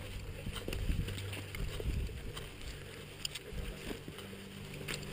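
Footsteps and gear rustling while hiking on a dirt trail: irregular soft ticks and scuffs over a low rumble on the microphone.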